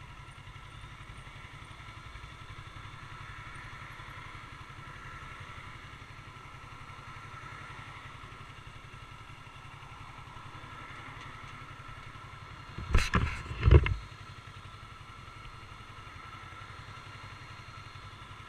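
Motorcycle engine idling steadily while the bike stands stopped. About thirteen seconds in there is a brief loud burst of noise in two quick pulses, the second heavier and lower.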